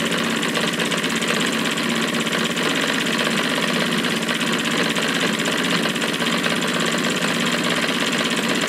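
Mohoo toy two-cylinder V steam engine running on steam from its alcohol-fired boiler, spinning insanely fast. It makes a steady, even buzz whose strokes come too fast to count.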